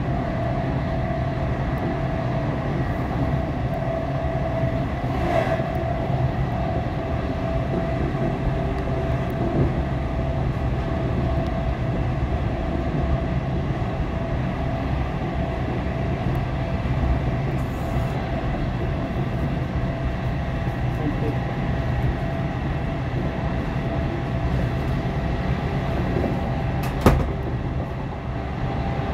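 Class 455 electric multiple unit running at steady speed, heard inside the carriage: a steady traction motor hum with constant tones over the rumble of wheels on rail. A single sharp click near the end.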